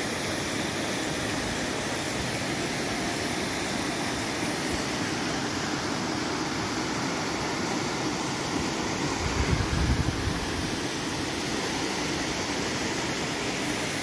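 Steady rush of a waterfall and river in flow, an even wash of water noise. A brief, louder low rumble about nine seconds in.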